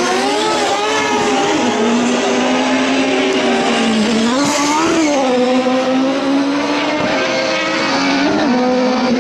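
Autocross buggies' racing engines running hard on the dirt track, their pitch repeatedly rising and dipping as drivers rev, lift and change gear, with more than one car's engine overlapping.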